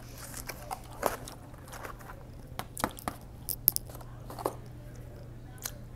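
Mouth-close chewing of a grilled chicken sandwich with scattered soft clicks and crinkles from its paper wrapper and a cardboard food box being handled, over a steady low hum.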